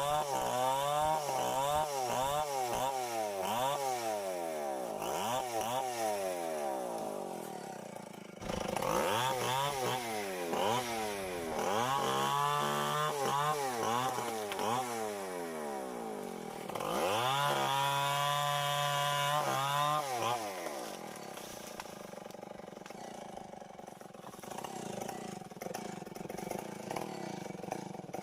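Two-stroke Tecomec chainsaw working on uprooted mango wood, its engine revving up and dropping back again and again. Near the middle it is held at high revs for about three seconds. After that it settles to a lower, quieter running.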